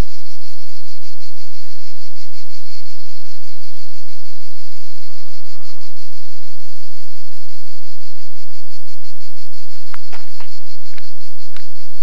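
Steady high-pitched insect chorus, a fast even buzz. A brief faint call comes about halfway through, and a few sharp clicks near the end.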